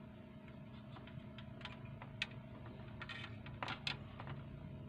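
Light clicks and taps of multimeter test probes against a radio's circuit board, a few in quick succession about three to four seconds in, over a steady low hum.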